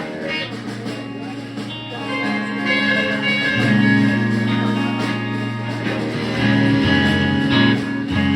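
Guitar music: held chords ringing out, changing every couple of seconds.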